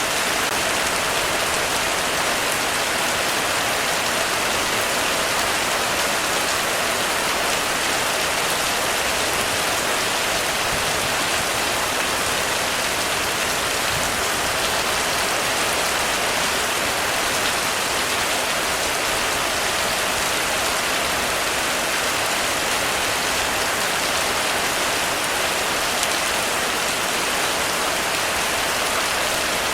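Heavy rain falling steadily on a roof, an even, unbroken hiss of drops.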